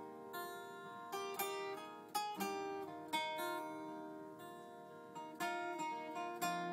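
Background music: a gentle melody of plucked acoustic guitar notes, each struck and left to ring.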